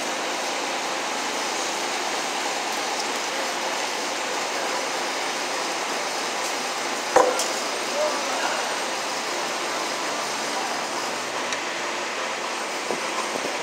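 A steady background hiss, with one sharp knock about halfway through and a few softer taps as electrical cable is handled and stripped at a plastic wall box.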